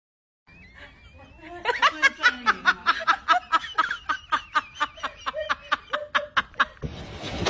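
A person laughing hard in a fast, even ha-ha-ha, about four or five laughs a second for some five seconds. Near the end the laughter gives way to a steady rushing noise.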